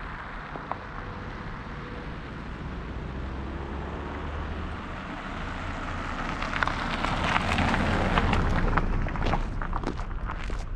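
Footsteps crunching on packed snow, over a steady rushing noise that swells about seven seconds in.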